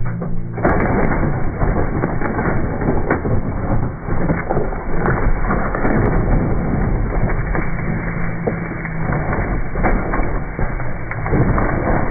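Dirt bike engine running, heard faintly at times under a loud, dense crackling and scraping noise that sets in suddenly about half a second in, as the bike tips over and slides on the rock slab.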